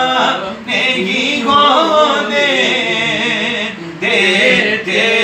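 A man singing a naat unaccompanied, drawing out long held notes that waver and slide in pitch, with two short breaks between phrases.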